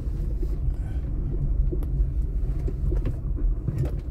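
A car driving on a street of concrete paving blocks, heard from inside the cabin: a steady low rumble of engine and tyres on the paving.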